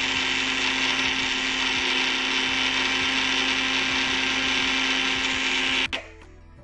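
Electric mixer grinder (mixie) running at full speed, grinding dry-roasted whole spices into fine garam masala powder. It runs steadily with a constant hum, then stops suddenly with a click about six seconds in.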